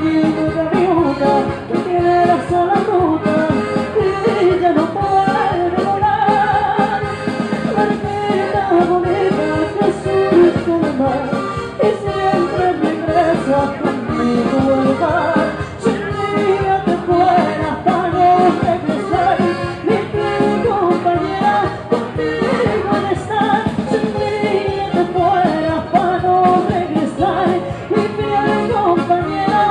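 A woman singing a Spanish-language song into a microphone through a PA, backed by accordion and keyboard with a steady beat.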